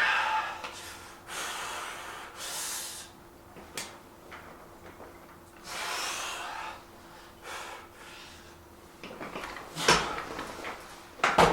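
A man breathing hard through nose and mouth during a weightlifting set, with a run of short forceful exhales. Near the end come a few sharp knocks and clatter of the weights being handled.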